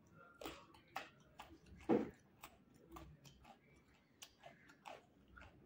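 A person chewing a mouthful of rice and raw carrot close to the microphone: irregular crisp crunches and wet mouth clicks, the loudest crunch about two seconds in.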